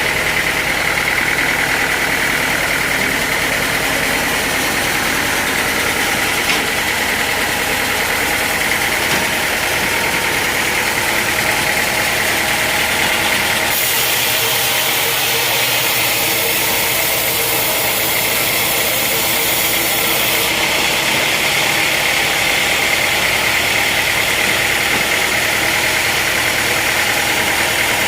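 Sawmill machinery running steadily, with a constant high whine. A harsher hiss comes in about 14 seconds in and drops away about 6 seconds later.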